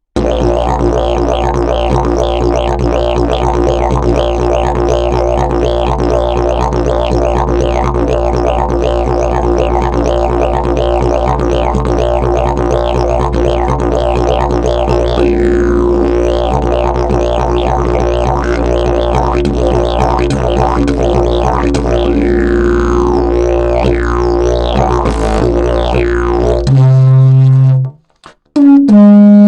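Fiberglass and prickly-pear-fiber slide didgeridoo played in a steady low drone, with vocal shaping sweeping its overtones up and down. Near the end the drone stops and two short, loud, higher toots follow.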